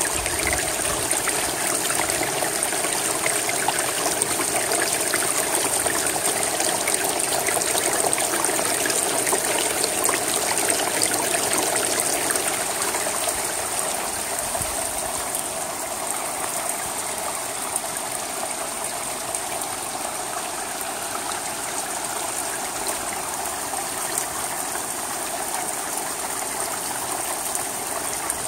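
Steady rain falling on a wet shingle roof, with water running over the shingles; a dense, even patter and wash that eases slightly about halfway through.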